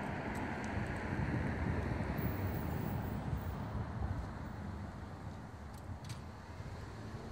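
Steady low outdoor rumble, with a few faint clicks about six seconds in.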